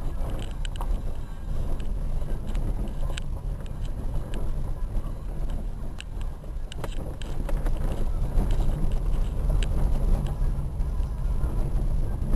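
Dacia Logan driving down a rough dirt mountain road: a steady low rumble of the car and its tyres, with scattered sharp clicks and knocks throughout.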